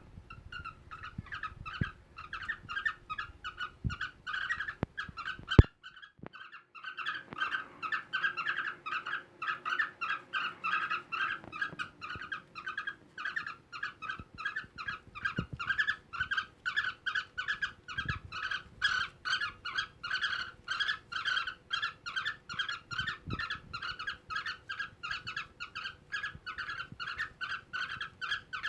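Cockatiels chirping during mating: a long, steady run of short, sharp chirps repeated about three or four times a second, breaking off briefly about six seconds in. A few sharp knocks come in the first six seconds, the loudest just before the break.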